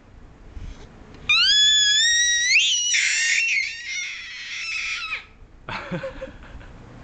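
An eight-month-old baby girl's happy scream: one long, very high-pitched squeal starting about a second in. It rises in pitch, turns rougher midway and trails off after about four seconds.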